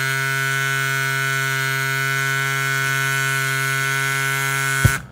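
A steady, unchanging humming tone with many overtones, ending abruptly in a sharp hit near the end.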